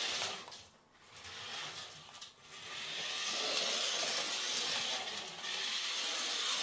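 Battery-powered toy RC mini truck's small electric motor and plastic gearbox whirring as it drives across a laminate floor. The whir cuts out briefly twice, about a second in and again just past two seconds, then runs steadily.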